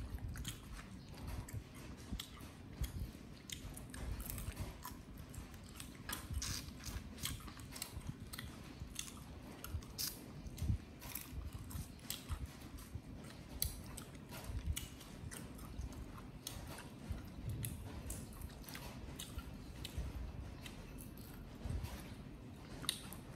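Close-up eating sounds: chewing and biting with irregular crisp clicks and crunches over soft low thumps.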